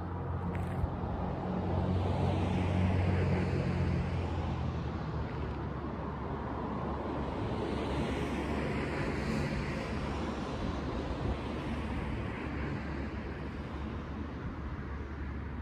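Engine rumble from passing motor noise. A low drone is plain in the first few seconds, the sound swells about two to three seconds in, then settles into a steady broad rumble.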